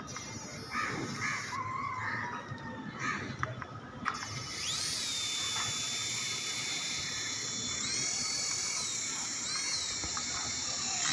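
Small coaxial toy helicopter's electric rotor motors spinning up about four seconds in to a steady high-pitched whine. The pitch rises briefly twice near the end as the motors speed up. Before the motors start there are only faint handling clicks.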